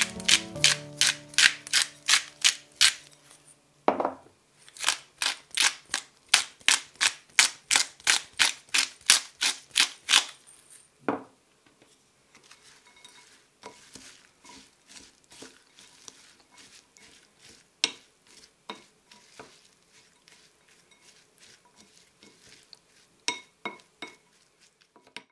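Hand-twisted spice mill grinding over a bowl of chopped nuts: a run of crunching twists, a short pause, then another run at about three twists a second. After a knock a little past the middle, a wooden spoon stirs the nut mixture in a glass bowl with soft scrapes and clicks.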